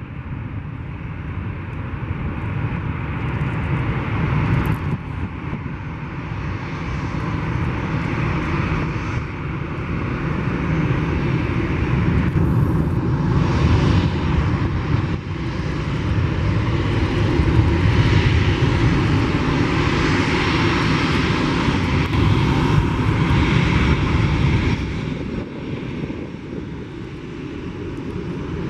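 Boeing 757 jet engines at high power on departure: a loud steady roar with a deep rumble that builds and is loudest in the second half, then falls away sharply near the end.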